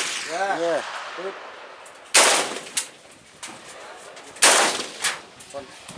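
Two single shots from an AK-style rifle, about two and a half seconds apart, each followed by a fainter report about half a second later.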